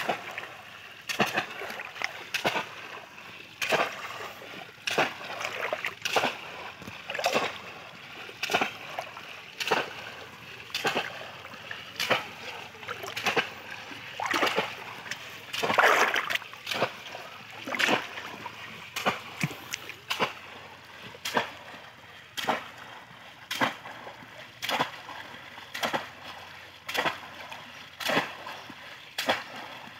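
Bamboo cone-shaped plunge baskets thrust down again and again into shallow water by two people wading, making repeated splashes about one to two a second. The longest and loudest splash comes about halfway through.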